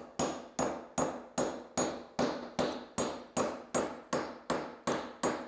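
Rapid, evenly paced hammer blows, about two and a half a second, each with a short bright metallic ring. They are driving a hatchet head down onto its new wooden handle to seat it.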